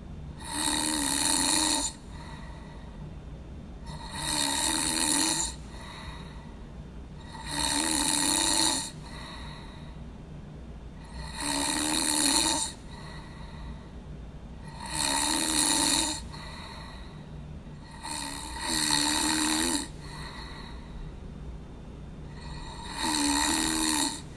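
A person snoring in a steady rhythm, seven rasping snores each lasting just over a second and coming about every three and a half seconds, over a steady low hum.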